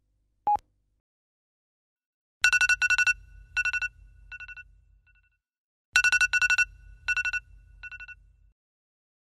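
A single short beep from a film countdown leader, then a smartphone alarm ringing: two rounds of a rapid beeping pattern, each about three seconds long, with the beeps growing quieter through each round.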